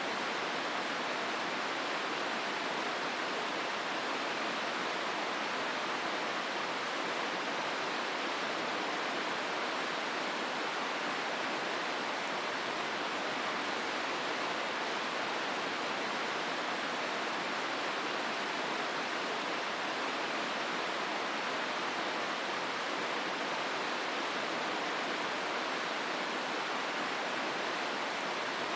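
Steady, unbroken rush of the Hozu River's water flowing through the gorge.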